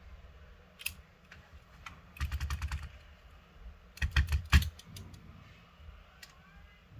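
Small, sharp clicks and taps from tools and parts on a Galaxy Note10's internals during disassembly: a single click, then a quick run of clicks around two seconds in, and a louder cluster around four seconds in.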